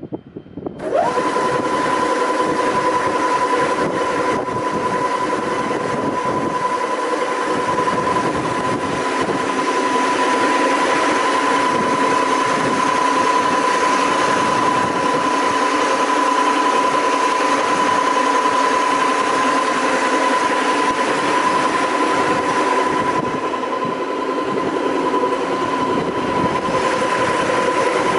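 Quick Wood RO1100 brush sanding machine switched on and running with no workpiece: its motors and rotating sanding brushes start about a second in, the pitch sweeping up fast to a steady high whine over a constant rushing noise.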